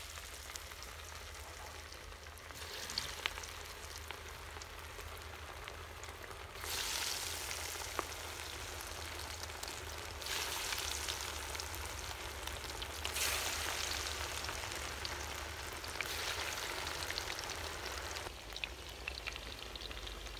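Besan-battered fish pieces deep-frying in hot ghee in a karahi: a steady sizzle that swells louder four times as more raw pieces are dropped into the oil.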